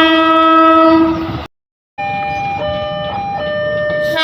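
KRL electric commuter train horns sounding semboyan 35, the Indonesian railway's horn signal that a train is about to depart. A loud, steady blast of several tones stops abruptly about a second and a half in. After half a second of silence a second horn sounds, its pitch stepping between tones.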